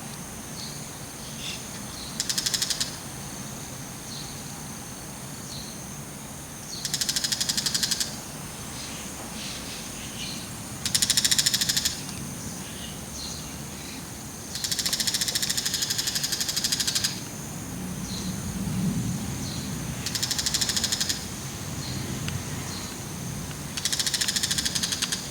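Bull-headed shrike giving harsh, rapid rattling calls in six separate bursts of about one to two and a half seconds each, with faint short chirps in the gaps.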